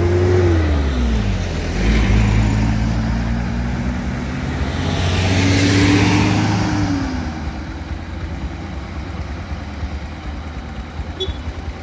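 Cars and vans driving slowly past one after another, their engine notes rising and then falling away as each goes by. The loudest passes come about two seconds in and around six seconds in.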